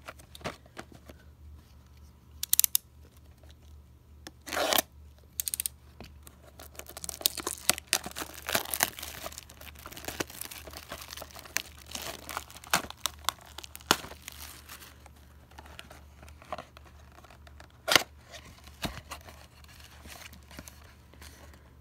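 Plastic shrink wrap being torn and crinkled off a cardboard trading-card box: a few loud, sharp tears early on, then a long stretch of dense crackling as the wrap is peeled away. Later come scattered single snaps and rustles as the paperboard box lid is pulled open.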